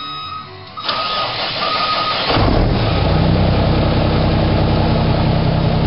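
Mack truck diesel engine cranking and catching about two seconds in, then running loud and steady at idle through newly fitted 7-inch straight exhaust stacks.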